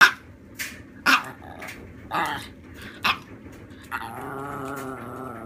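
A small Chihuahua-type dog yapping aggressively at another dog, about seven short, sharp barks, then a steady growl from about four seconds in.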